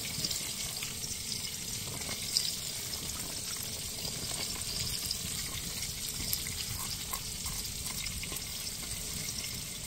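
Steady outdoor background hiss with a faint low rumble, broken by a few small clicks.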